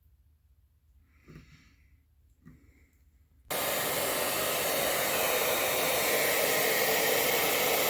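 Handheld hair dryer switched on about halfway through and running with a loud, steady rush of air, used to heat the door's metal before pulling the dent. Faint breathing before it starts.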